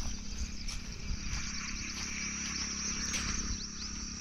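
Insects trilling steadily at a high pitch, with a few quick falling bird chirps a little past three seconds in.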